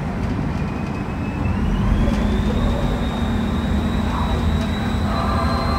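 Ferry boat's engines running with a steady low rumble that grows louder about two seconds in, while a high whine rises and then holds.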